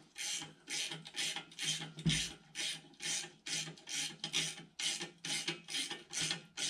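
Ratchet wrench running a 10 mm bolt into a threaded bracket: a rapid, even series of rasping ratchet strokes, about three a second.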